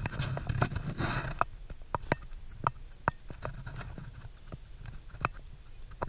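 Footsteps on a gravel path, irregular sharp steps about two a second, over a steady low rumble.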